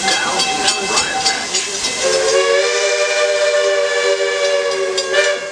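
Steam locomotive's chime whistle blowing one long, steady blast of several tones together, starting about two seconds in and cutting off near the end, sounded for the road crossing. Underneath is the regular chuff and hiss of the engine's steam exhaust.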